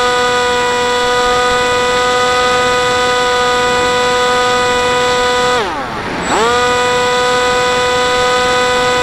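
The electric motor and propeller of an FPV model wing, heard from its onboard camera, whining at a steady high pitch. About five and a half seconds in, the pitch drops sharply and climbs back within a second as the throttle is briefly cut and reopened.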